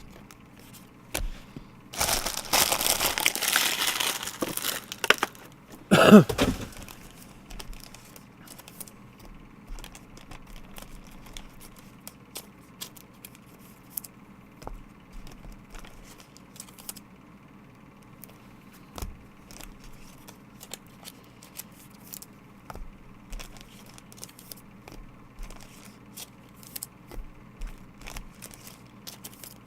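Trading-card pack wrapper torn open and crinkled, with a long ripping stretch about two seconds in and another sharp rip about six seconds in. Soft clicks and rustles of cards being handled follow.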